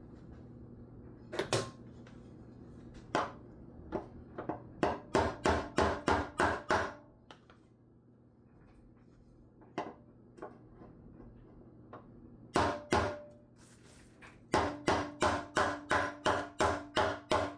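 Hammer strikes on a sheet-steel engine oil pan, knocking dents out: a few single blows, then quick runs of about three to four strikes a second, the metal ringing in the later run.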